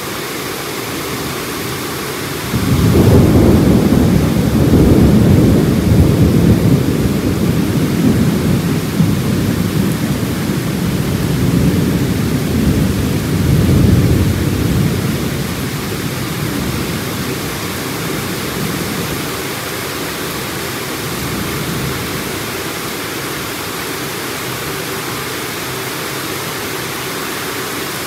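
Heavy downpour with a steady hiss of rain. A long low rumble of thunder starts a few seconds in, swells twice and dies away about halfway through.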